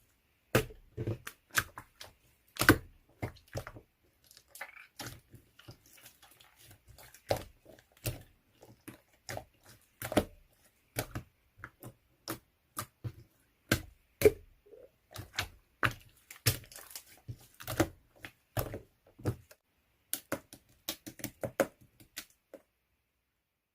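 Slime being squeezed and poked by hand, giving a dense, irregular run of sharp crackling pops and clicks that stops near the end.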